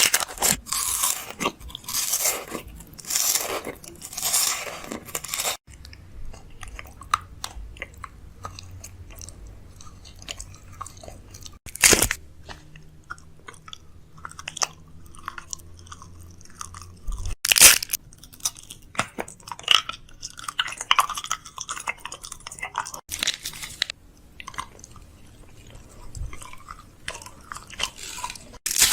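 Crunchy chewing and biting, many short crackly clicks, in several short segments cut together about every five to six seconds.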